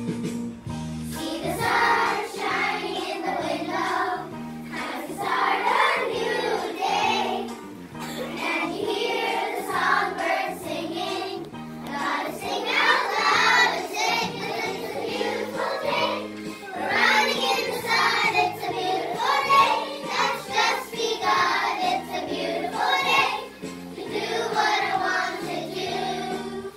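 Group of young children singing a song in unison over instrumental accompaniment, in continuous phrases.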